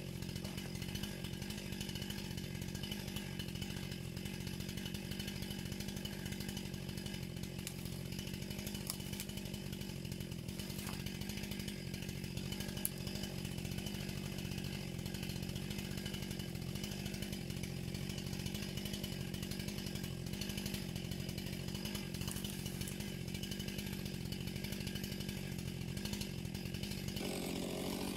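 Two-stroke chainsaw running steadily at one even pitch, not revving; the sound changes shortly before the end.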